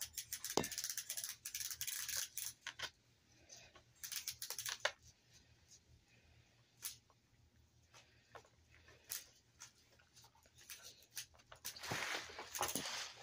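Close-up eating sounds: chewing and lip smacks as a steak omelet is eaten, with a fork scraping and tapping the plate in the first few seconds. The sounds come in clusters of small clicks, thinning out in the middle and picking up again near the end.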